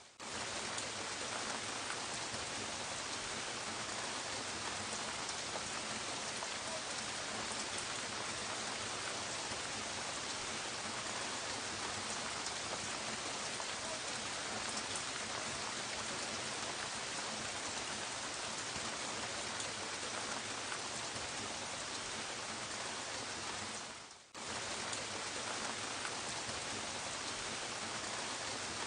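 Gentle steady rain falling, an even dense patter of drops. The sound drops out for a moment about 24 seconds in, then returns.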